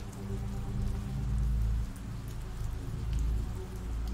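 Steady rain ambience, an even hiss with scattered sharp drop ticks, over a low rumble that swells and eases every second or two.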